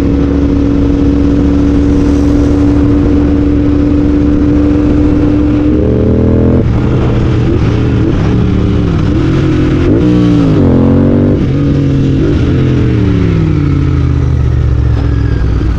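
Royal Enfield Continental GT 650's parallel-twin engine through a Red Rooster aftermarket exhaust, heard onboard while riding. The note holds steady for about six seconds, then the revs rise and drop several times, and the note falls away steadily near the end as the bike slows.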